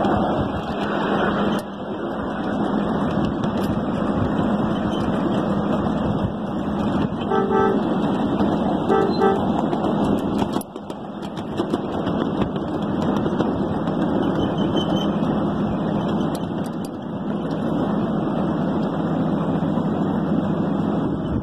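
A ride-on miniature train sounds two short toots on its horn, about a second and a half apart, some seven seconds in, over a steady rushing noise.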